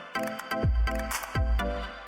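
Electronic background music with a steady beat: deep kick drums that drop in pitch, under a chord of sustained tones.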